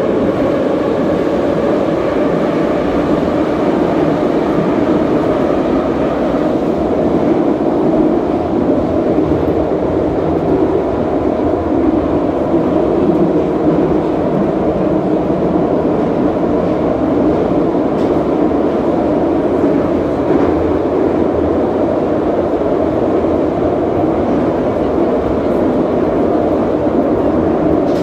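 Vintage Moscow metro car running between stations, heard from inside the car: a loud, steady rumble of wheels on rail and running gear, with a faint whine that fades out over the first several seconds.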